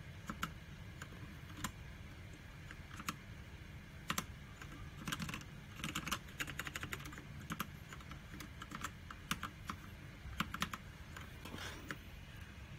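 Mechanical keyboard being typed on: irregular sharp key clicks, with quicker runs of keystrokes around the middle and again later.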